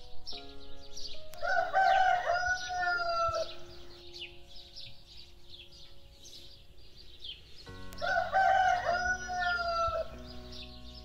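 A rooster crows twice, about two seconds each, the first starting about a second and a half in and the second near the end. Small birds chirp throughout, over soft background music.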